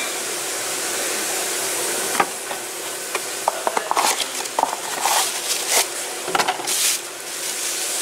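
Plastic bubble wrap crinkling and crackling in irregular bursts as a new ignition coil is unwrapped, over a steady background hiss. A single sharp click comes about two seconds in.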